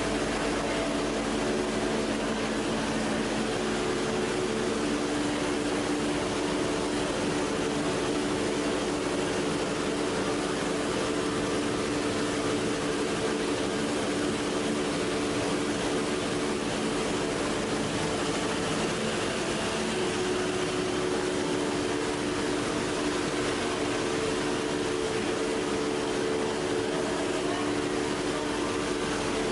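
PP/PET box-strapping extrusion line running: motors driving the roller stands that pull the plastic straps, giving a steady machine hum of a few constant low tones over an even hiss.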